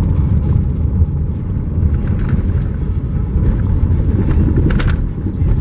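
Car driving on a gravel road, heard from inside the cabin: a steady low rumble of tyres and engine. A brief cluster of light ticks comes about five seconds in.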